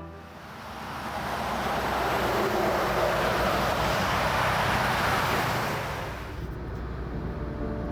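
A vehicle passing by: a rushing noise that swells for a few seconds and fades away about six seconds in. Soft music comes back in underneath near the end.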